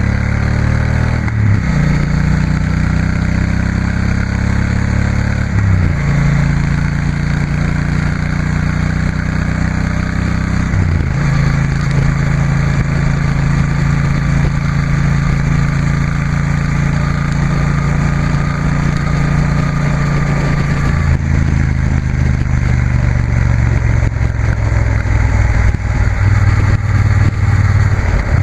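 2016 Triumph Bonneville T120's 1200 cc parallel-twin engine running through aftermarket Vance & Hines silencers while riding. The engine note drops and climbs again three times in the first eleven seconds, as with gear changes, then holds steady, growing louder near the end.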